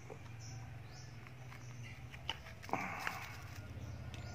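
Hard plastic flashlight case being handled and opened: a few light clicks, then a sharper snap with a brief rustle about two and a half seconds in. A steady low hum runs underneath.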